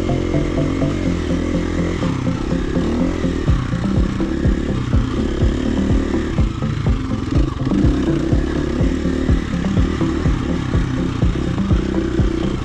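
Background music for the first couple of seconds, then a dirt bike's engine running and revving up and down as it rides along a rough dirt trail, with irregular knocks throughout.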